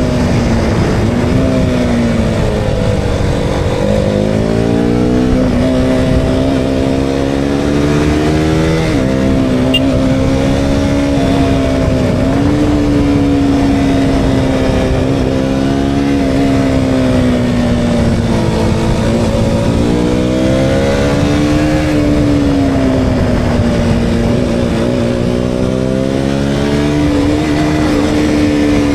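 KTM Duke 200's single-cylinder engine under way, its pitch rising and falling repeatedly as the throttle is worked through the bends, with sudden drops about 4 and 9 seconds in. Wind rushes over the helmet-mounted microphone throughout.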